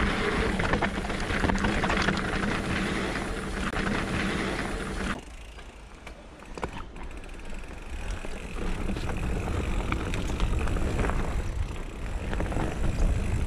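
A steady hum with held low tones over the opening title, cutting off sharply about five seconds in. Then, from about halfway, a mountain bike rolls over a dirt woodland trail, with a low rumble of tyres and wind on a helmet camera.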